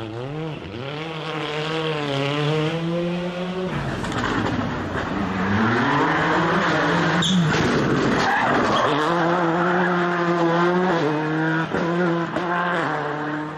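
Skoda Fabia WRC rally cars' turbocharged four-cylinder engines, in several passes in a row, with revs rising and dropping sharply through gear changes and lifts. Stretches of tyre squeal and sliding noise come in between.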